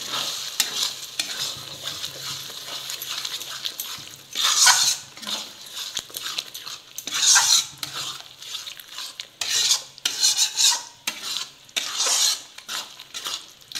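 Metal spatula stirring and scraping masala with freshly added yogurt in a metal pan, the masala sizzling in oil. Several louder scraping strokes come from about four seconds in.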